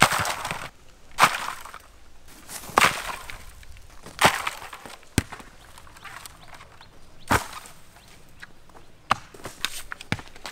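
Green coconuts knocking and thudding as they hit the dry ground and each other. There are about eight sharp, separate impacts at uneven intervals, and the loudest comes right at the start.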